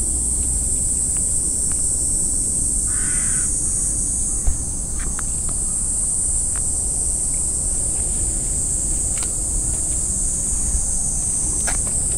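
A steady high-pitched insect drone throughout, with one short bird call about three seconds in and a soft thump a little after four seconds.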